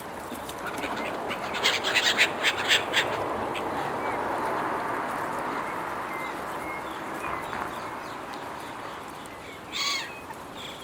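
Seagulls calling harshly as they compete over food: a quick run of loud squawks about two seconds in, then a single call near the end.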